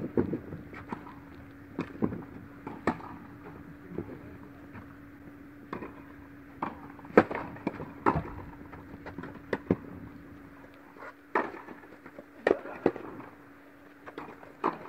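Tennis rally on an indoor court: a tennis ball struck by rackets and bouncing, a string of sharp pops about a second apart with a short echo, over a steady hum.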